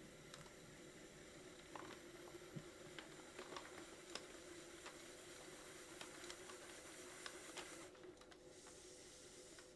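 Faint steady hum of an electric pottery wheel, with light scraping and scattered ticks from a trimming tool shaving leather-hard clay.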